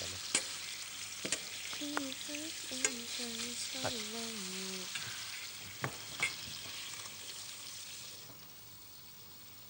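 Lamb chops sizzling in a hot stainless-steel frying pan as they are turned, with metal utensils clicking against the pan several times. The sizzle dies down about eight seconds in.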